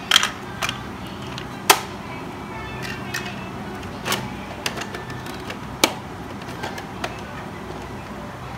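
Scattered sharp plastic clicks and clacks from a large PAW Patrol toy truck and trailer being handled, over a steady low hum.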